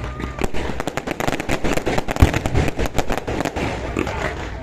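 Fireworks going off in a dense, rapid string of sharp cracks and bangs, with a few louder reports standing out.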